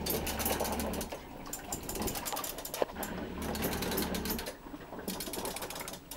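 Homemade reciprocating water-displacement gravity engine running, driven by electric trolling motors: a low motor hum that cuts in and out every second or two as the motors switch on and off, over a fast mechanical rattle from the machine and boat shaking.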